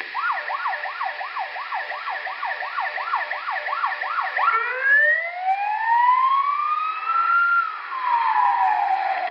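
Ambulance siren in a fast yelp, about three rising-and-falling sweeps a second, switching about four and a half seconds in to a slow wail that climbs for about three seconds, falls near the end and cuts off suddenly.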